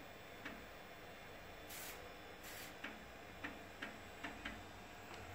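3.5-inch floppy disk drive clicking as its read head steps across tracks during a ScanDisk surface scan, in irregular single ticks. About two seconds in come two short hissy bursts.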